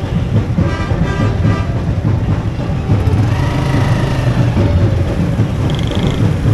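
Small motorcycle engine running at low speed amid street traffic noise, with music carrying over it.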